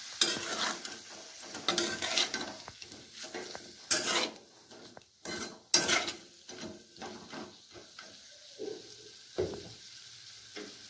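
Chicken pieces sizzling in oil in a steel kadhai while a spatula stirs them, with irregular scrapes and knocks against the pan. The chicken is being fried until its water dries off.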